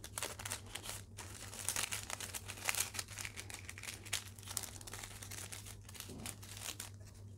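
A sheet of butter paper (baking parchment) crinkling and rustling in many small crackles as hands fold it into a cone.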